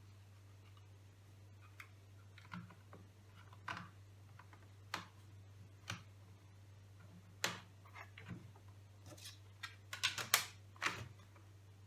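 Irregular light clicks and taps of small parts and a screwdriver being handled during a laptop teardown, about a dozen in all and bunched more closely near the end, over a faint steady low hum.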